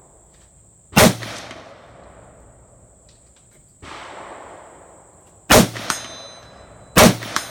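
PSA AR-15-style rifle fired single shots at a slow, uneven pace: three loud shots at about one, five and a half and seven seconds, each with a short echo, and a fainter bang near four seconds. A light metallic ring and clinks follow the later shots.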